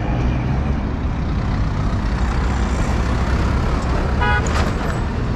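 Busy city road traffic: engines and tyres rumbling steadily, with one short vehicle horn toot about four seconds in.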